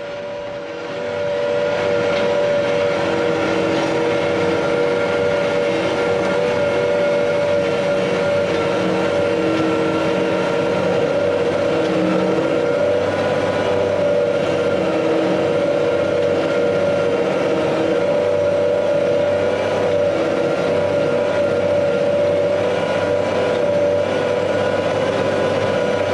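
Versatile tractor's diesel engine running steadily under heavy load as it pulls a five-shank disc ripper through hard ground, a constant drone that comes up about a second in and holds.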